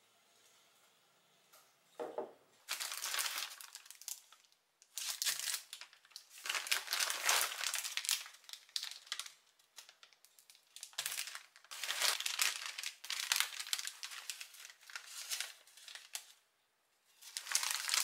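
A thin plastic carrier bag and kraft paper bakery bags crinkling and rustling as they are handled and unpacked, in several bouts with short pauses, starting about two seconds in.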